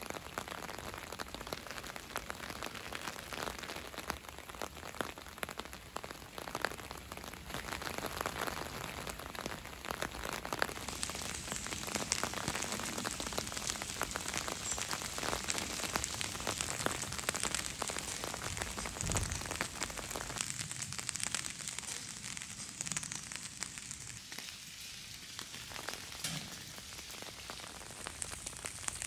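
Steady rain falling, an even hiss of rain with many single drops ticking through it.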